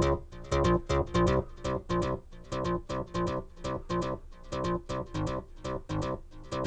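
Access Virus synthesizer playing a MIDI-triggered electronic sequence of short, evenly spaced notes, about four to five a second.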